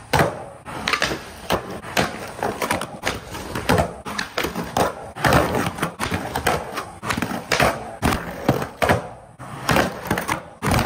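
Skateboard on concrete: Independent Stage 4 trucks grinding along a painted concrete curb edge, wheels rolling on rough concrete, and many sharp clacks and slaps of the board hitting the curb and the ground.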